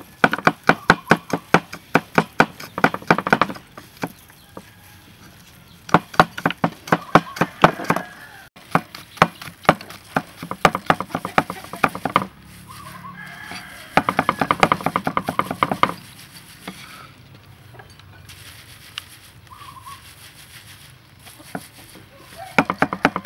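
A cleaver chopping fast on a wooden chopping board, about six strokes a second, in several bursts of a few seconds with short pauses between them. Chickens cluck in the background.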